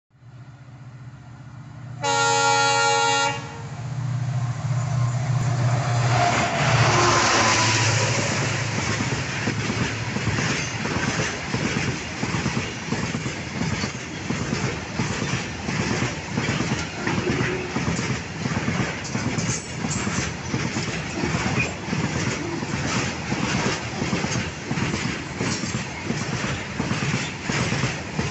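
A freight train of railway tank wagons passing close by. About two seconds in there is a loud locomotive horn blast lasting just over a second. The locomotive then runs past, followed by a long, even clickety-clack of the wagon wheels over the rail joints at about one beat a second.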